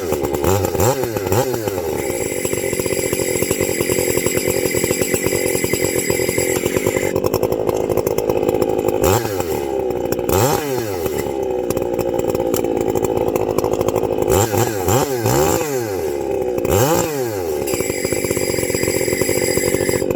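Chainsaw engine running steadily, making an odd noise: a high whine comes and goes, and several swooping sounds rise and fall in pitch over about a second each, mostly in clusters near the middle and later on.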